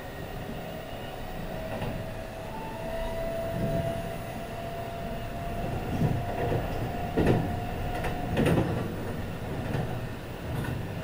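Kintetsu 22000 series ACE electric train running, heard from inside the car's vestibule: steady rumble of wheels on rail, with a thin whine from the drive that rises slightly in pitch and stops about eight seconds in. Near the end come two loud knocks as the wheels pass rail joints.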